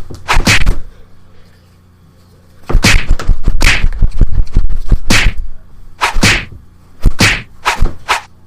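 A run of sharp whacking impacts, coming in quick groups of two or three, with a pause of about two seconds after the first second.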